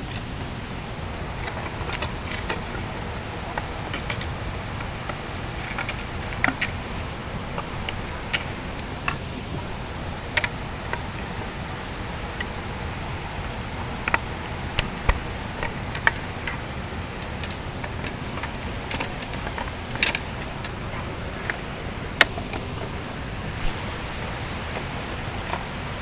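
Steady rush of flowing water, with scattered sharp clicks and knocks and a few metallic jingles from gear being handled, the loudest about 22 seconds in.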